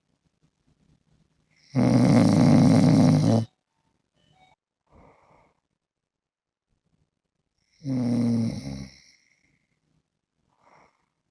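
A man sleeping face down, snoring: two loud, rough snores about six seconds apart. The first lasts nearly two seconds and the second about one second.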